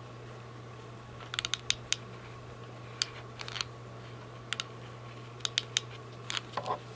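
Hand work on the mask: irregular clusters of short, sharp clicks and snips, roughly a dozen spread over several seconds, over a steady low hum.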